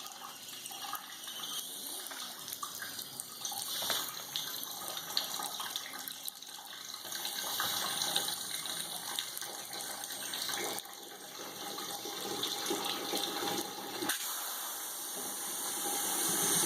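Water splashing and trickling out of wet paper-and-sawdust pulp as an air-powered briquette press slowly squeezes it, with small clicks and knocks from the press.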